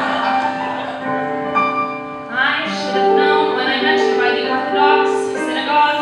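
Piano accompaniment playing alone, then a woman's solo voice comes in about two seconds in, singing a show tune over the piano.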